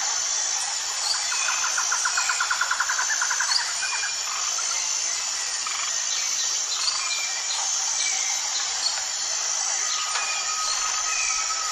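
Outdoor forest ambience: birds calling in short chirps over a steady, high-pitched insect drone. A fast trill of repeated notes comes about two seconds in, and a held whistle-like tone begins near the end.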